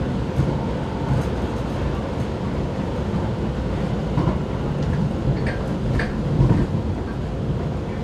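Vienna U-Bahn train running, heard from inside the car: a steady rumble of wheels on rails, with a few faint high squeaks from the running gear near the middle.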